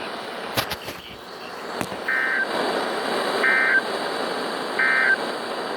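Three short bursts of NOAA Weather Radio SAME digital data tones, a fraction of a second each and about 1.4 s apart: the end-of-message code sent as a weekly test broadcast closes. They play over the receiver's hiss, with a few sharp static clicks in the first two seconds.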